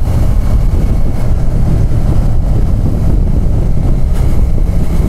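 Motorcycle riding along at steady speed: a continuous low rumble of wind buffeting the microphone mixed with the engine running, with no change in pace.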